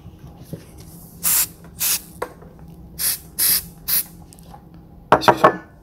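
Five short, sharp hissing exhalations blown through the teeth, the forced breathing of someone straining through dumbbell reps, followed near the end by a louder quick burst of knocks.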